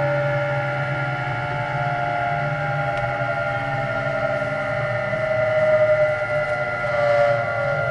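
Kintetsu 9020 series electric train running: the whine of its Mitsubishi inverter and traction motors, several tones slowly falling in pitch as the train slows, over a steady rumble. The sound swells briefly about six and seven seconds in.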